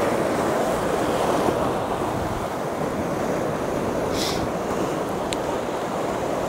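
Rough sea surf washing over a boulder-strewn shore, a steady rushing noise, with strong wind across the microphone. A short hiss about four seconds in.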